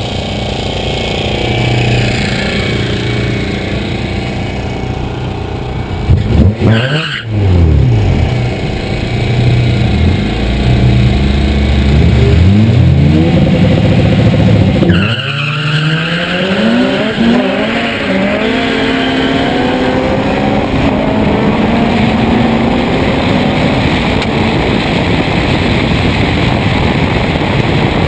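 Honda four-cylinder drag car engine running and revving at the start line. About fifteen seconds in it launches and accelerates, its pitch climbing in several rising sweeps with a short drop at each gear change.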